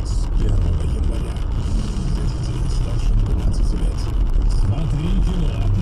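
Steady engine and road rumble heard from inside a car driving at speed on a highway.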